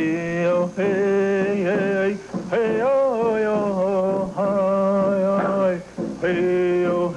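A man's voice chanting a ceremonial chant in long held notes, about five phrases with short breaks between them. The pitch stays mostly steady, with one rise and fall about three seconds in.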